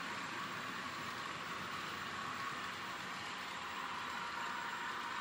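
Sound decoder in a Dapol N scale Class 50 model diesel locomotive playing a recorded diesel engine sound through its tiny speaker. It runs steady and thin, with a hissy, tinny edge.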